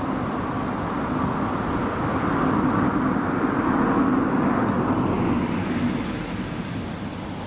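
A road vehicle passing, its steady noise swelling to a peak about four seconds in and then fading away.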